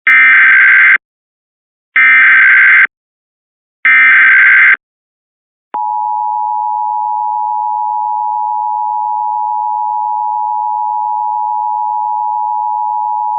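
Three Emergency Alert System SAME header data bursts, each about a second long, encoding a Child Abduction Emergency alert for West Virginia. After a short pause, the two-tone EAS attention signal (853 and 960 Hz together) begins and holds steady for about eight seconds.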